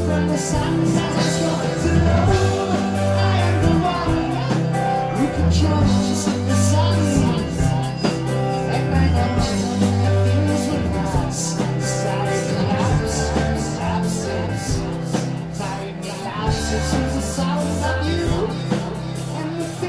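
Live rock band playing a song: bass, drums with cymbals, and singing.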